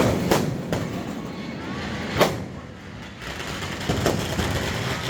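Firecrackers going off in a crowded street: several sharp bangs, the loudest about two seconds in, over the noise and voices of a crowd.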